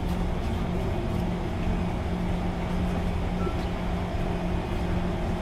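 Kawasaki C151 MRT train standing at the platform with its doors open: a steady low drone with a constant hum running through it.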